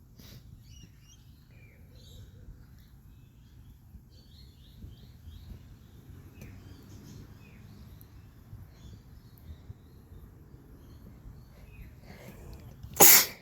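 Small birds chirping on and off over a steady low background noise. Near the end comes one sudden, loud sneeze from a person, much the loudest sound.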